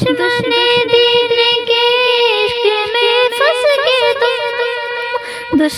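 A young female voice singing a wordless, ornamented vocal passage of a devotional nazm, with wavering held notes over a steady drone tone.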